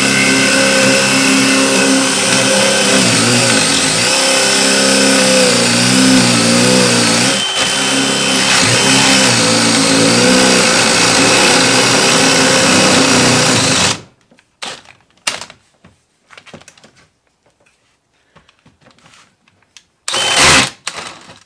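Cordless DeWalt hammer drill in drill mode boring a 1-1/8-inch spade bit into a wooden post, its motor running under heavy load with a wavering pitch. It stops about 14 seconds in, and a short burst of drilling comes near the end.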